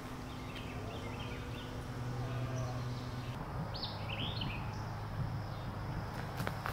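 Outdoor woodland ambience: a steady low rumble with small birds chirping in short bursts several times, and a few sharp ticks near the end.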